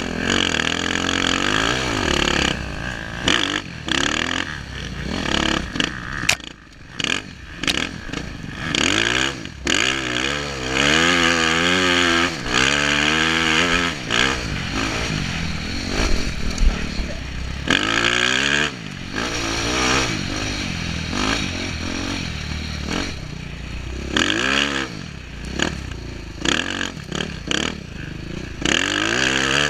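Dirt bike engine revving hard, its pitch rising and falling over and over as it is throttled and shifted through the gears, with a few brief sharp drops in level. Heard from a helmet-mounted camera, with steady wind rush over the engine.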